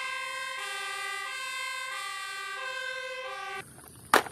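Two-tone siren of a German fire engine, alternating between a high and a low note about every two-thirds of a second, cutting off abruptly about three and a half seconds in. A single sharp knock follows near the end.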